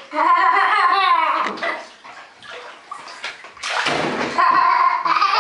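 A young child's long, wordless squealing vocalization, then a splash of bathwater in the tub about three and a half seconds in, then another drawn-out squeal near the end.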